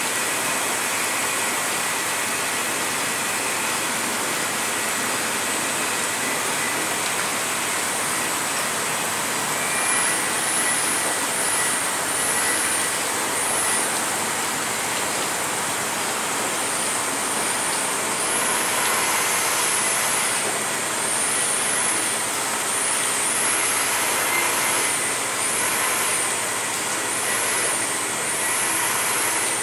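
2019 WashTec Combiwash rollover car wash running its spinning brushes over a car: a steady rush of water spray, brushes and gantry machinery. From about a third of the way in, a high whine wavers up and down over and over.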